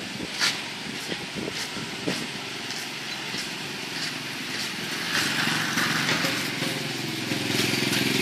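Small single-cylinder motorcycle engine of a homemade three-wheeled cargo motorbike approaching, its running growing steadily louder over the last three seconds as it comes close. A few sharp clicks are heard in the first seconds.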